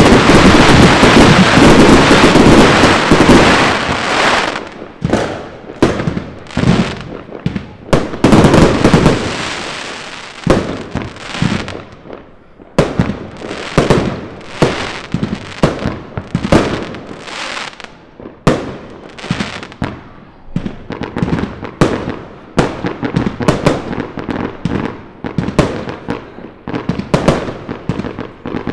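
Consumer fireworks going off: a dense, unbroken barrage for about the first four seconds, then a long run of separate sharp bangs, several a second.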